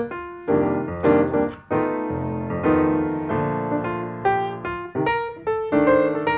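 Background piano music: a flowing run of struck notes and chords.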